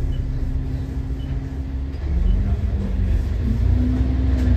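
Alexander Dennis Enviro400 double-decker bus's diesel engine, heard from inside the bus: a steady low drone that gets louder and rises in pitch about two seconds in as the bus accelerates.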